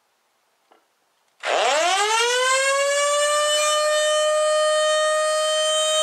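1929 Federal Electric Model 2 tornado siren starting up at full power: its wail comes in suddenly about a second and a half in, rises quickly in pitch and settles within a couple of seconds into a loud, steady tone.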